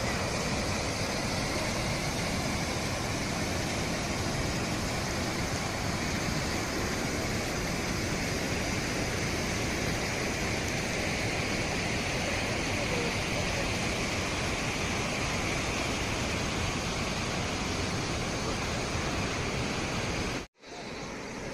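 Steady rushing noise that holds even for about twenty seconds, cut off abruptly near the end, then resuming more quietly.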